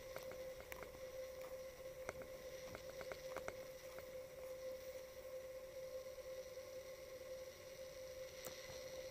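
A steady hum held at one pitch, with a few faint clicks between about two and three and a half seconds in.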